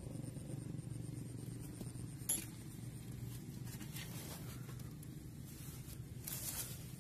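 A hand rummaging inside a clay pot trap sunk in the ground, with one sharp clink against the pot a little over two seconds in and a short scraping rustle near the end, over a low steady hum.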